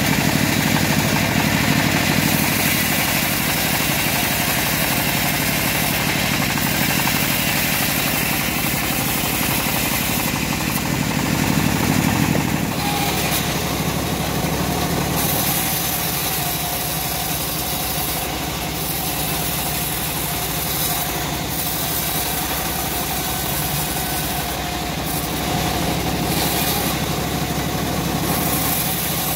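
A homemade machine-driven band-saw mill running steadily while its band blade rips through a short teak log.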